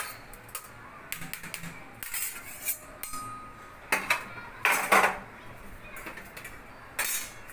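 Metal spoon scraping and tapping a stainless steel bowl, and the bowl clinking on a steel plate, as chopped chillies are scraped out. Irregular clinks and scrapes, the loudest a few in a row about four to five seconds in and another near the end.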